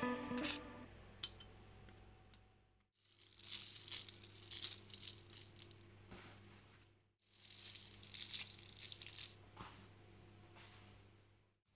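Granulated sugar being sprinkled onto egg-washed puff pastry rounds on baking parchment: a light, crackly rustle in uneven bursts, broken twice by short silences.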